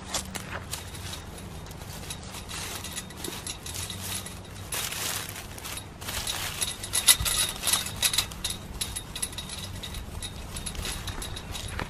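Steel wire fencing clinking and rattling, with dry leaves rustling, as a hand bends the spikes of a steel garden fence into the bottom of a chain-link fence. Irregular small metallic clicks, busiest from about five seconds in.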